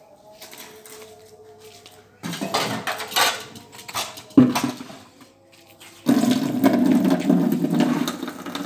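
Steel cups and pots clattering as they are handled, with one sharp clank of a vessel set down; then, about six seconds in, water starts running steadily into a container.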